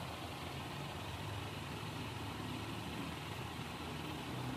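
A low, steady motor hum under a haze of background noise, growing louder near the end.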